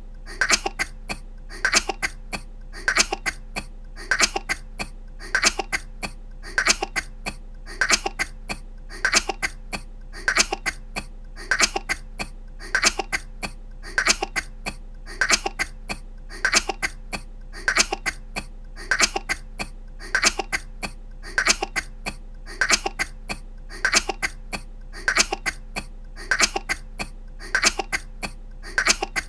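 A woman's short, light coughs, coming in small clusters that repeat in a steady, even rhythm about once a second.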